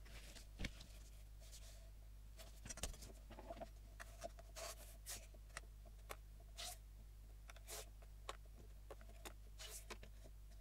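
A metal blade drawn across a sheet of card along a steel ruler: about ten short, faint scratching strokes at an uneven pace, the sharpest two in the first three seconds, over a steady low hum.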